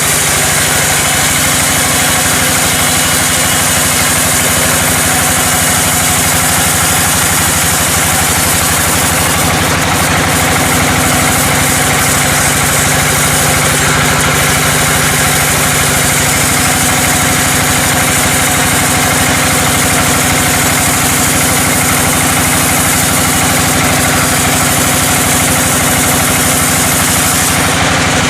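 Sawmill machinery running: a steady, unbroken engine-like drone with a strong hiss and no pauses.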